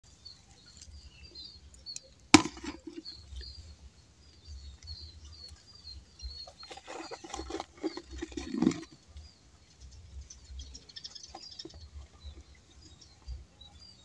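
Handling noise around a plastic tub: a sharp tap about two seconds in, then a stretch of rustling and light knocks. Rapid high chirping goes on in the background for the first few seconds.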